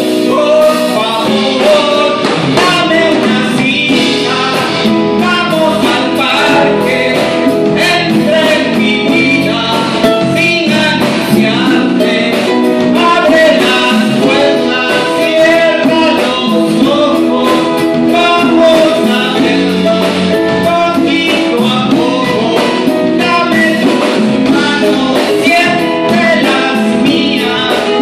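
Male vocalist singing live into a microphone over instrumental accompaniment that includes guitar.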